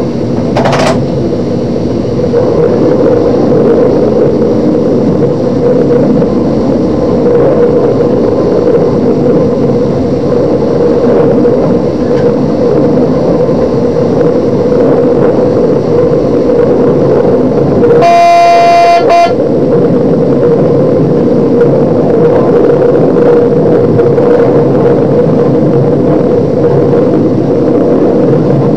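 DB Class 628 diesel multiple unit running along the line, heard from the driver's cab: steady engine and wheel-on-rail noise, with the train's horn sounded once for about a second a little past halfway.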